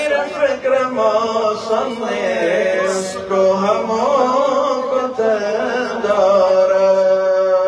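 A man singing a devotional song into a microphone: a long wordless run of vocal ornaments that settles about six seconds in into one long held note.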